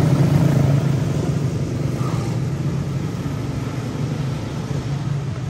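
Quarter midget race cars' small single-cylinder Briggs & Stratton Animal engines running as a steady drone that fades a little over the few seconds.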